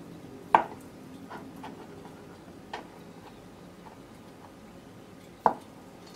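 Kitchen knife cutting through a cylinder of hard-boiled egg and knocking down onto a plastic cutting board: two sharp knocks about five seconds apart, with a fainter one between them.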